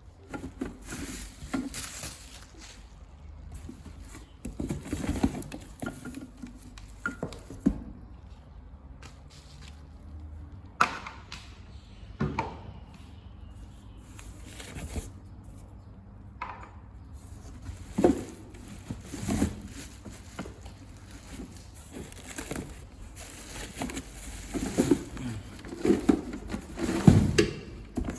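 Irregular knocks, taps and rustling of a boxed kitchen appliance being unpacked and handled by hand, with a cluster of louder knocks near the end.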